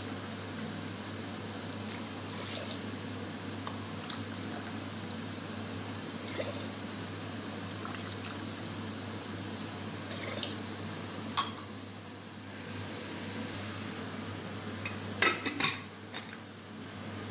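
Water sloshing and pouring over a steady low hum, with faint scattered ticks. A sharp click about two-thirds of the way through, then a quick cluster of metal clinks near the end as an aluminium pressure cooker's lid is handled.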